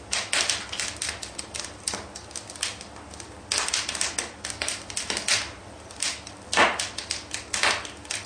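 Irregular sharp clicks and short scratchy strokes, several a second, over a low steady hum.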